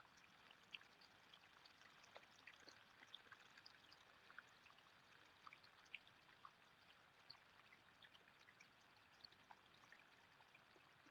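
Near silence: faint creek water with scattered small drip-like ticks.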